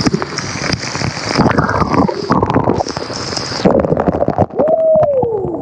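Rushing waterfall and splashing water. About two-thirds of the way through, the sound suddenly turns muffled and gurgling as the microphone dips under the water. Near the end a single tone slides downward.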